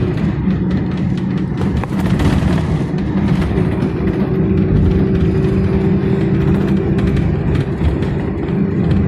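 Inside a moving local bus: the engine and road noise make a steady low drone, with light rattles and knocks from the bus body.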